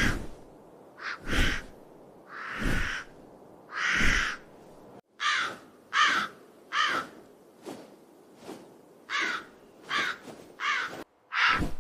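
Crow cawing: a series of about a dozen harsh caws, some short and clipped, some drawn out, with two brief dead-silent gaps between them.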